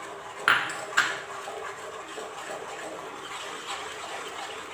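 A spatula stirs and scrapes a thick milk-powder mixture in a non-stick pan, knocking sharply against the pan twice, about half a second and a second in, over a steady faint hiss of the mixture cooking.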